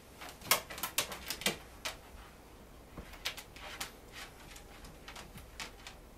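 Clusters of quick, sharp clicks and scratches, the first cluster about half a second in and another at about three seconds: sleeping Pembroke Welsh corgi puppies twitching their paws against the carpet as they run in a dream.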